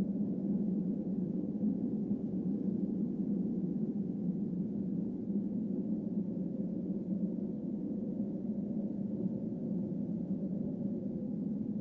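A steady, low humming drone, with a fainter higher tone that wavers slightly near the end.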